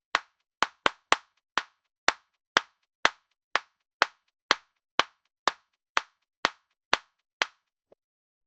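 A person clapping hands, single sharp claps with silence between: a few quick uneven ones at first, then a steady beat of about two claps a second, ending with one faint clap.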